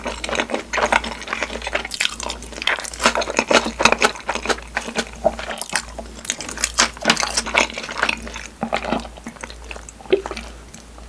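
Close-miked chewing of takoyaki (octopus balls): rapid, irregular wet chewing and lip-smacking mouth sounds, thinning out near the end.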